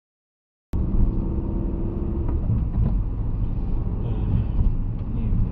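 Silence, then less than a second in a car's driving noise cuts in abruptly: a steady low rumble of engine and tyres heard from inside the cabin through a dash cam.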